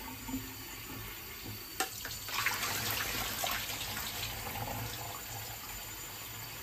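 Kitchen tap running into a stainless steel sink while water and washed diced chicken are tipped from a bowl into a metal mesh sieve to drain. A sharp knock comes just before a louder splashing pour about two seconds in, which then eases back to the steady run of the tap.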